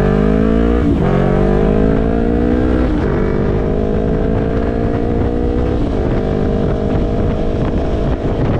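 Yamaha YZF-R3's 321 cc parallel-twin engine accelerating through the gears: its pitch climbs in each gear, dropping at upshifts about one, three and six seconds in, then holds steady at cruising speed.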